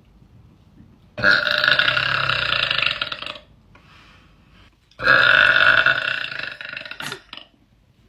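A woman burping loudly twice: two long burps of about two seconds each, the first starting about a second in and the second about five seconds in.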